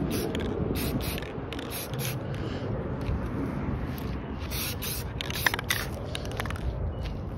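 Rust-Oleum aerosol spray paint can hissing in several short bursts with brief pauses between them, as paint is sprayed onto plastic and metal parts.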